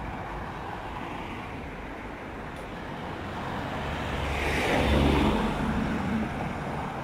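A motor vehicle drives past close by on the road. Its tyre and engine noise builds up, peaks about five seconds in, then fades.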